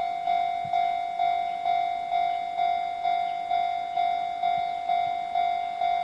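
Level-crossing warning bell ringing in an even, steady rhythm of about two strokes a second, each stroke a bright tone dying away before the next. It is sounding for an approaching train.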